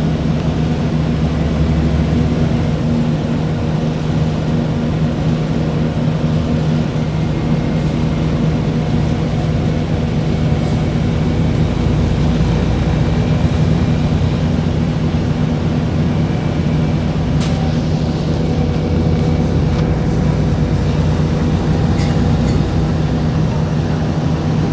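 Steady low mechanical drone of a running vehicle engine, a constant hum over a rumble, with a few faint clicks.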